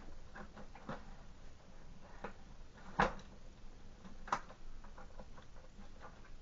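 Hard plastic parts of a Fluval FX6 canister filter clicking and knocking as they are pushed and worked into place inside the canister, with two louder knocks about three and four seconds in.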